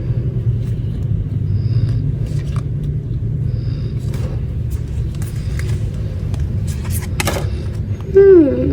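Steady low rumble with scattered light clicks. Near the end comes a short, loud voice-like sound that slides down in pitch.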